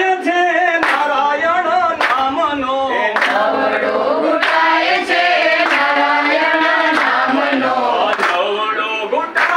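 A group of men and women singing a song together, with hand claps keeping the beat about once a second.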